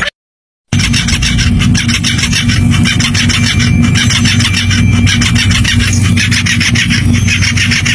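Domestic cat purring loudly close to the microphone, a steady fast rasping rumble starting about three-quarters of a second in after a short silence.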